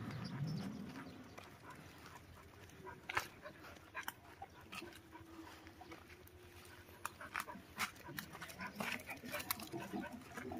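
Faint sounds of dogs out on a walk, with scattered short clicks and scuffs that come more often in the second half.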